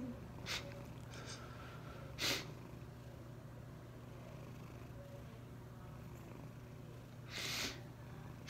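A crying man sniffing sharply through his nose three times: once about half a second in, once about two seconds in, and a longer sniff near the end, over a low steady hum.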